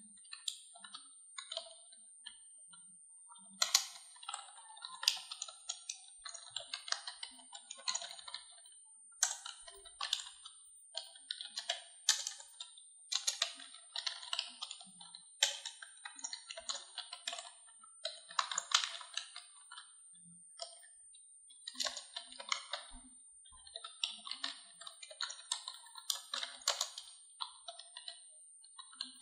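Computer keyboard being typed on in quick runs of keystrokes broken by short pauses.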